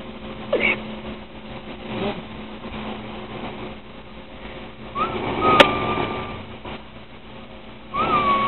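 A sleeping woman whistling in her sleep as she breathes: a thin, nearly steady whistle tone that swoops up and holds for about a second and a half from about five seconds in, with a sharp click in the middle of it, and another whistle starting near the end. A steady low hum lies under it.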